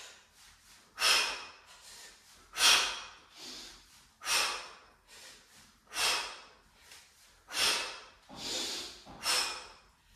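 A man breathing hard through kettlebell swings: a sharp, forceful out-breath on each swing, six in all, about one every 1.7 seconds, with softer breaths between.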